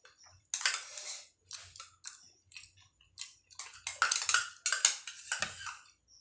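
Metal spoons scraping and clinking against bowls, with chewing, in irregular bursts that are busiest about four to five seconds in.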